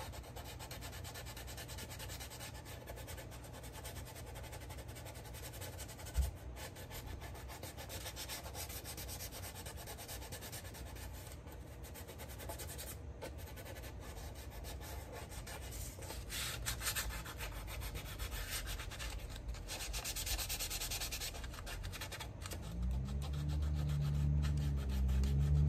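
600-grit sandpaper rubbing over the polystyrene plastic of a model kit in quick short strokes, smoothing dried putty around an inset window frame; the rubbing gets louder in patches about two-thirds through. A low hum comes in near the end.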